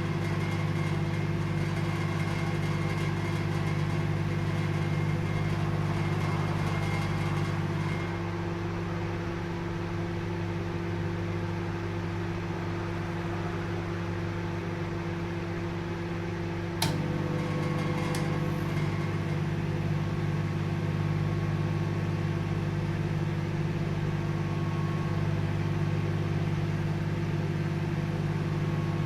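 Microwave oven running with a steady low hum. About eight seconds in the hum thins, and a sharp click about seventeen seconds in brings back the fuller hum, followed by a fainter click.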